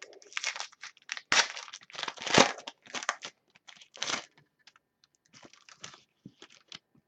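Trading cards and their packaging being handled: irregular rustling, sliding and crinkling, loudest in the first half.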